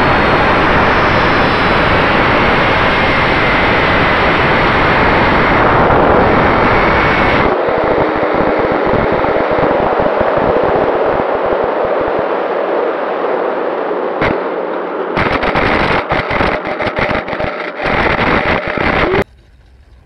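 Loud steady rushing noise with a faint whine, from the foam RC model jet's electric motor and the air rushing past it. About a third of the way in it breaks up into crackling gusts, and it cuts off suddenly near the end.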